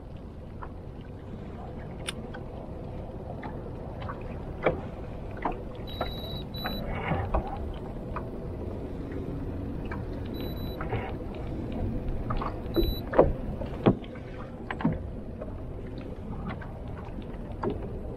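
Scattered knocks and clicks of gear being handled aboard a fishing boat, over a steady low rumble of wind and water. Four short, high electronic beeps sound in the middle stretch.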